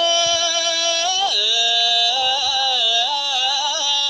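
A young Buddhist monk's solo chant in a sung style: one voice holding long notes, sliding down about a second in, then wavering through quick ornamented turns before settling on another held note.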